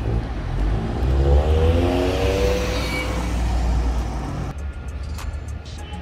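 A car accelerates past, its engine note rising and its sound swelling and then fading. Music comes in about four and a half seconds in.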